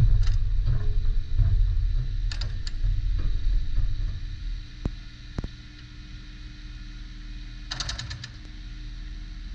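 Volvo ECR25D mini excavator running, its engine loaded hard for about four seconds with clanks and knocks from the working machine, then settling to a steadier idle. There are two sharp knocks and, near the end, a quick rattle of metal clicks.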